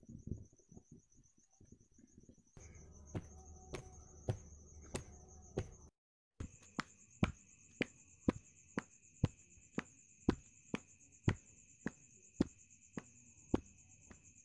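Footsteps of a person walking in sandals on a concrete lane, about two steps a second, over a steady high-pitched insect chirring.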